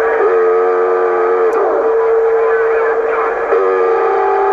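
Received audio from a Cobra 148GTL CB radio's speaker: a steady whistle on the channel, with a held chord of several tones, like a horn, sounding twice, over faint garbled distant voices.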